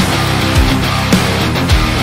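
Heavy rock background music: sustained guitar chords over a steady kick-drum beat of about two hits a second.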